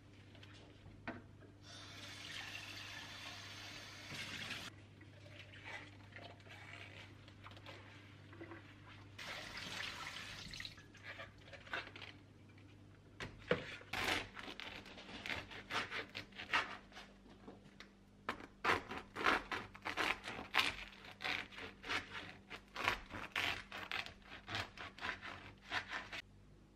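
Tap water running into a stainless-steel sink in two short spells during washing up. From about halfway through, a knife saws through a crusty baguette on a wooden board in rapid, crackly strokes.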